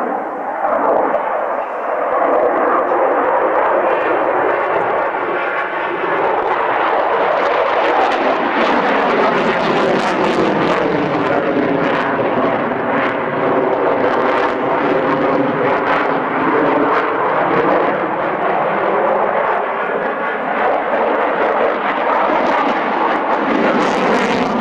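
A large twin-engine Russian jet fighter's engines making a loud, steady rushing noise in a low display pass. The noise builds over the first two seconds, then holds. Through the middle a swirling whoosh sweeps down in pitch and back up as the jet goes by.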